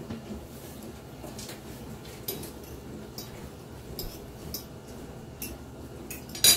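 Metal forks clinking and scraping on ceramic dinner plates while eating: scattered light clicks, with the loudest pair near the end.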